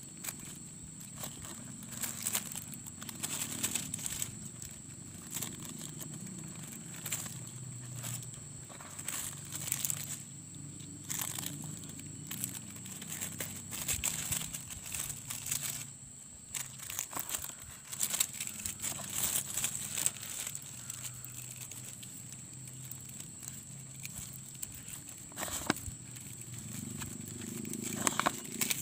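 Thin plastic grafting tape crinkling and rustling in irregular bursts as it is handled, stretched and wrapped around a seedling's graft. A steady faint high whine runs behind it.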